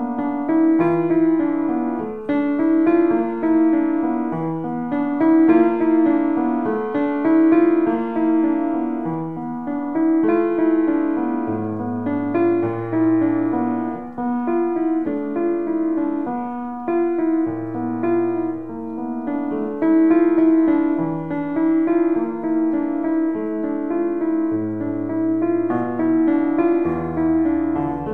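Solo piano improvisation: a flowing melody in the middle register over sustained chords, with low bass notes coming in now and then.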